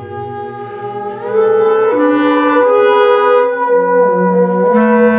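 Free-improvised duet of bass clarinet and theremin playing long held notes that step and slide in pitch. It grows louder about a second and a half in.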